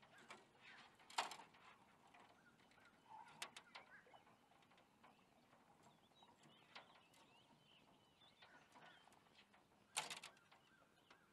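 Near quiet, broken by a few sharp clicks and knocks of fishing tackle being handled in an aluminium jon boat, the loudest near the end, with faint bird chirps in the middle.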